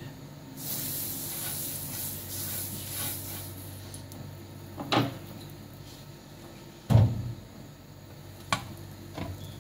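Buttered grill pan sizzling in a hiss that lasts about three seconds, then fades. A knock comes about five seconds in, a louder knock about seven seconds in, and a light click near the end.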